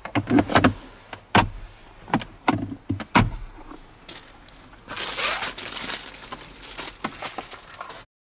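Sharp clicks and knocks of hard plastic van interior trim being handled and snapped into place, most likely the cabin air filter cover and surrounding panels being refitted. About five seconds in, a rustling hiss with more small clicks takes over, then the sound cuts off suddenly.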